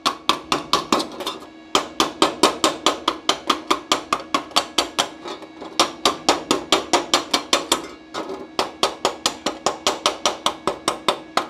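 Rapid metallic strikes on a fresh flux-core weld seam in 0.7 mm sheet steel, about five a second in runs with short pauses, as the slag is knocked off and the seam cleaned. A steady hum runs underneath.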